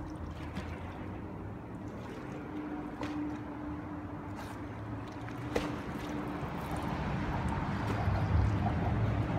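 Water splashing and rippling around a swimmer, over a steady faint hum and a low rumble that grows louder near the end.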